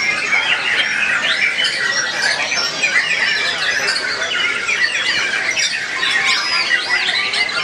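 White-rumped shamas singing, several caged birds at once: a dense, continuous tangle of loud whistles, trills and rapid chattering glides.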